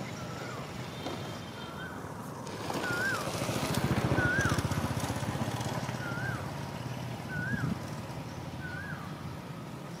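A bird repeating a short whistled note, rising then dropping, about once a second, over a low rough rumble that swells and is loudest a few seconds in.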